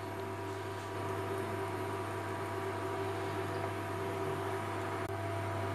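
Steady low electrical hum with a faint even hiss, like an appliance or mains hum.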